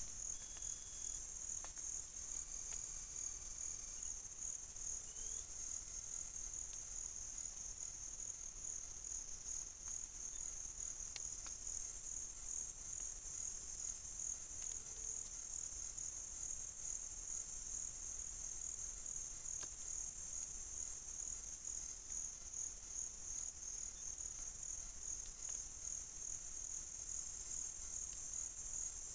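Steady, high-pitched insect chorus: one unbroken trill.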